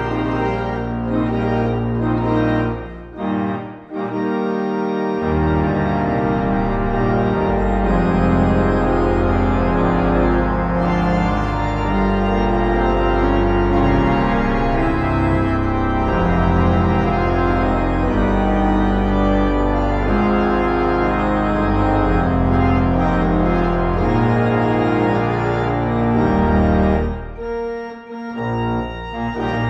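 Church organ playing full sustained chords over deep pedal bass notes. The sound drops away briefly between phrases about three seconds in and again near the end.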